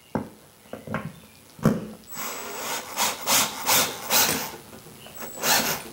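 Cordless drill driving a lag bolt through a steel TV wall-mount bracket into a wooden wall stud, run in short bursts to bring the bolt just snug, with a few knocks of the bit and bracket in the first couple of seconds.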